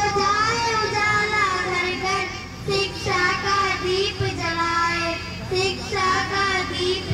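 Young girls singing a welcome song into handheld microphones, held notes gliding between pitches in phrases with short breaks, over a steady low hum from the sound system.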